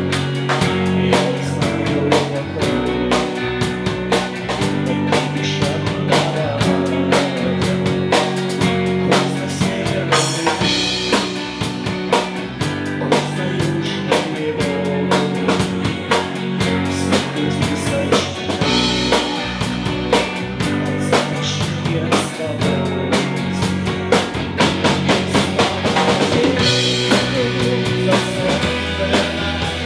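Live rock band playing an instrumental passage, with the drum kit out front over steady bass notes.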